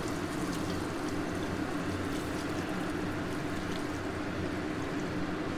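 Beef stock poured from a stainless steel pot through a plastic colander into a pot below: a steady stream of liquid splashing and trickling. A low steady hum runs underneath.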